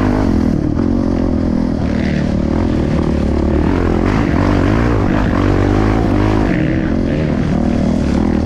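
Off-road trail motorcycle engine running under load, its pitch rising and falling as the throttle is worked.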